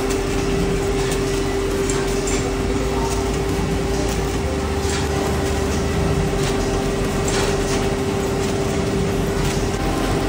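Flow-wrap packaging machine and conveyor running steadily: a constant mechanical hum with one strong steady tone and scattered light clicks.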